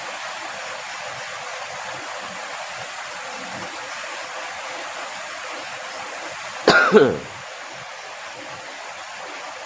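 Steady rushing hiss of flowing river water, broken about seven seconds in by one loud, short cough from a person.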